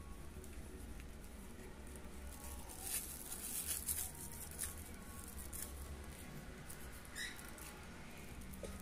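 Thin plastic freezer-pop bag faintly rustling and crinkling as fingers twist and knot its neck. The crinkling is busiest about three to four seconds in, over a low steady hum.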